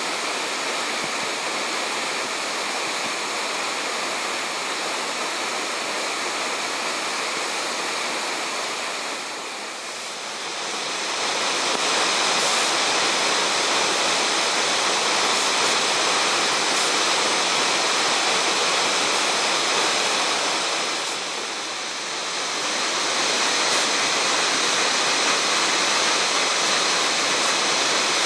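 Waterfall: a steady, full rush of falling water. It dips briefly about a third of the way in and again near two-thirds, then comes back a little louder each time.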